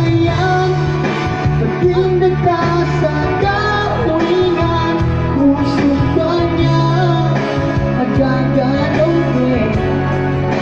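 A man sings into a microphone over backing music. The melody wavers and bends over a steady bass line.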